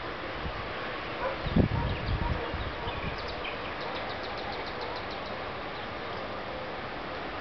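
Steady outdoor background hiss. A brief low rumble comes about a second and a half in, and a short run of fast high ticks, about nine a second, comes around four seconds in.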